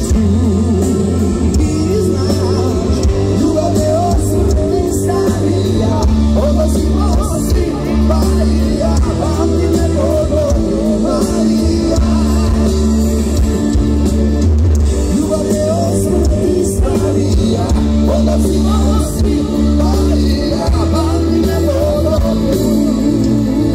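Live rock band playing through a PA, heard from within the crowd: a sung lead vocal over electric guitars, keyboard, bass and drums.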